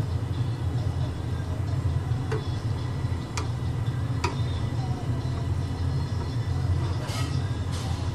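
Scattered light clicks and knocks from hands working on server hardware during a hard-drive swap, over a steady low hum.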